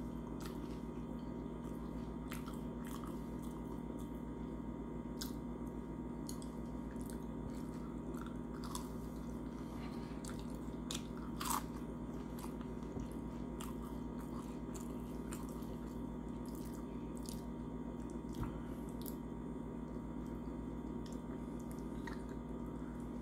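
A person chewing food close to the microphone, with scattered wet mouth clicks, over a steady low hum.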